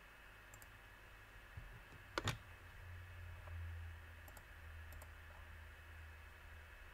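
Computer mouse clicked twice in quick succession about two seconds in, over a faint low hum and quiet room tone.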